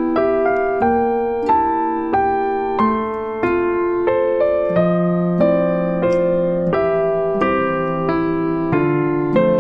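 Background music: a piano-like keyboard playing a slow, even melody, a new note about every two-thirds of a second.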